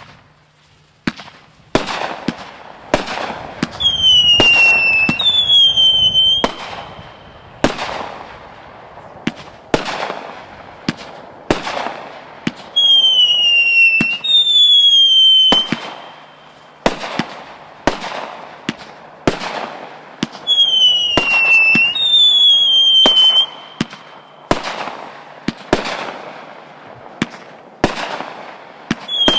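Fantasy Avalanche multi-shot firework firing shot after shot, a sharp bang roughly every second. About every eight or nine seconds a pair of loud whistles comes in, each dropping slightly in pitch.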